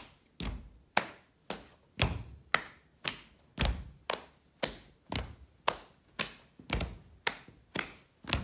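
Body percussion by two people: foot stomps on a wooden floor and hand slaps on the body in a steady three-beat pattern. A heavier low thud is followed by two sharper hits, about two hits a second.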